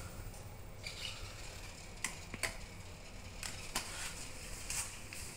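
Low steady hum and hiss in a lift car, broken by four or five sharp, light clicks spread through the few seconds.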